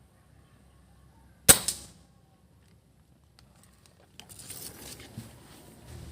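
A single PCP air rifle shot, one sharp crack about a second and a half in, with a second smaller crack a fraction of a second after it. From about four seconds in there is an irregular rustling, crackling noise.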